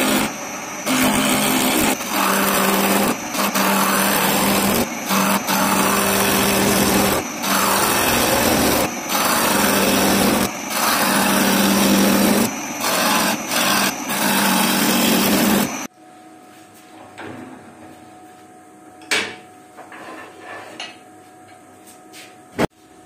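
Gouge cutting a spinning walnut blank on a wood lathe: a rough, steady shearing over a low hum, with brief breaks every second or two as the tool lifts between passes. It stops suddenly about two-thirds of the way through, leaving low shop noise and a couple of light knocks.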